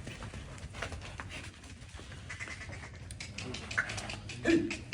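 Scattered clicks and knocks of livestock moving about, then one short animal call about four and a half seconds in.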